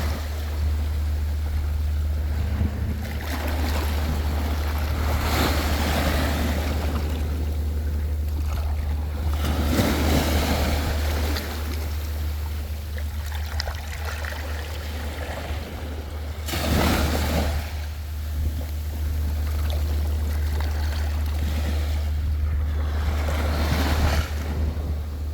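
Sea waves washing and breaking, swelling up every few seconds, over a steady low rumble.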